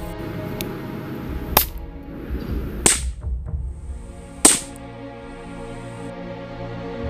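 Three sharp gunshot-like cracks, about a second and a half apart, over steady background music: the sound of the toy armies' gunfire and cannon fire.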